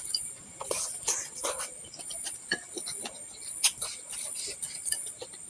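Close-miked eating sounds of a person eating bakso meatballs: chewing and mouth smacks with scattered sharp clicks, the sharpest a little over halfway through.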